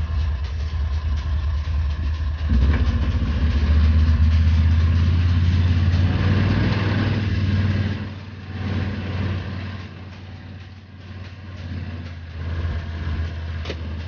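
Argo amphibious ATV's engine running steadily, getting louder as it takes more throttle about two and a half seconds in, then easing off about eight seconds in and rising and falling unevenly after that.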